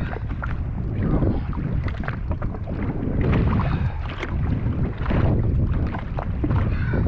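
Wind rumbling and buffeting on the microphone over open water, with irregular splashing and slapping of water.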